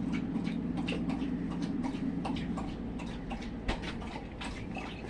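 Fabric scraps being handled and sorted: light rustling and scattered small clicks, over a steady low hum that fades out about halfway through.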